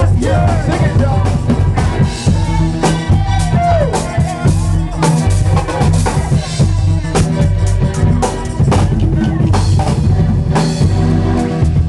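Live reggae band playing an instrumental stretch, the drum kit to the fore.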